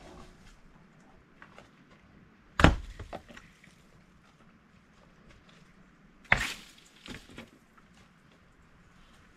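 Two loud wooden knocks, one a few seconds in and one about four seconds later, each followed by a couple of smaller clattering knocks: loose wooden boards being thrown down and landing on the ground and stones.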